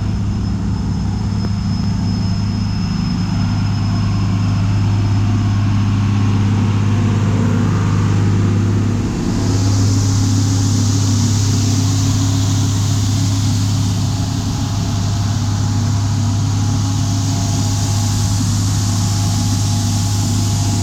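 Vehicle engine running steadily with a low hum. About halfway through it dips briefly, then a steady hiss comes in on top of the hum.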